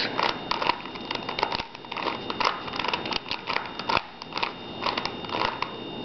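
Plastic 3x3 Rubik's Cube being turned by hand: a quick, irregular run of light plastic clicks and clacks as its layers are twisted over and over.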